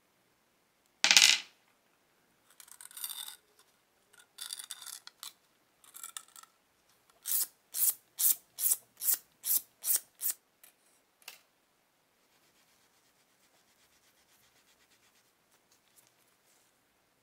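Small brass lighter parts handled with gloved hands. A sharp metallic clink comes about a second in, followed by a few scraping rubs and then a quick, even run of about eight rubbing strokes, with one more stroke after a short gap.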